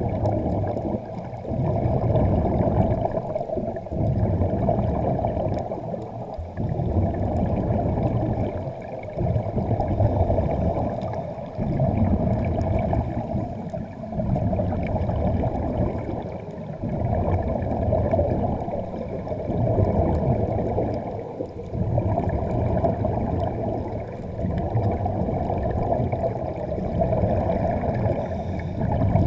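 A diver's air bubbling and rushing underwater, low and dull, swelling and dipping about every two seconds in time with breathing.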